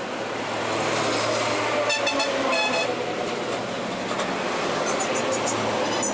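Street traffic noise with a vehicle horn tooting twice in quick succession about two seconds in.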